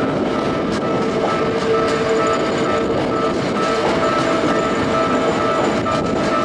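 A train running through a railway level crossing, its wheels clattering over the rails, while the crossing's warning bell rings steadily.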